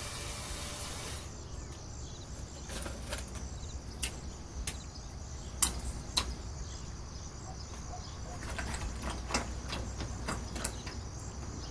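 A kitchen tap runs into a ceramic bowl and is shut off about a second in. Then come scattered light clicks and taps, and near the end water splashing as a hand works wood ear mushrooms soaking in the bowl.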